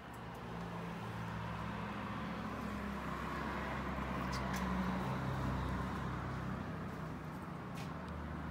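A motor vehicle's engine running, growing louder to a peak about five seconds in and then easing off a little.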